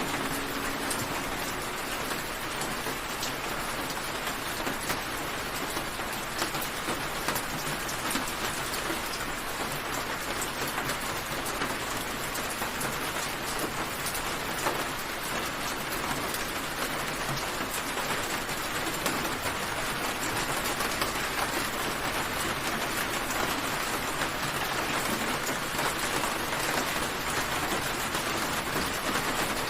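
Steady rain, an even hiss with many small drop ticks throughout.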